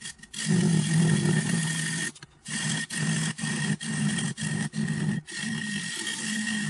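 A turning gouge cutting into the face of a wooden bowl spinning on a small wood lathe, peeling off shavings. It makes a loud rasping cut over the lathe's hum, broken off briefly several times.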